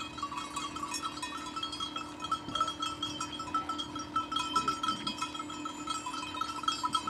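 Many bells on a grazing sheep flock clinking irregularly, over a steady hum.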